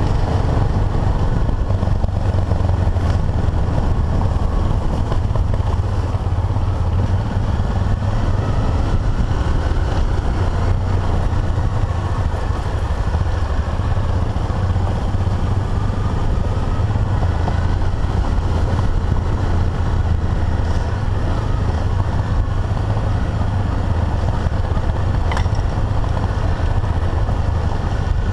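Single-cylinder dual-sport motorcycle engine running steadily at a constant low speed, heard from on board the bike, with an even rush of wind and road noise over it.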